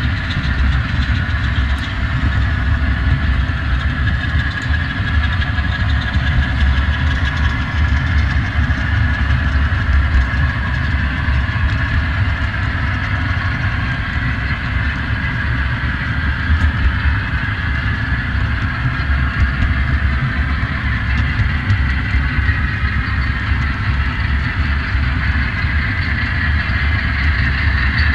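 Steady running noise of a train in motion: a continuous low rumble with a constant higher hum over it, unchanging throughout.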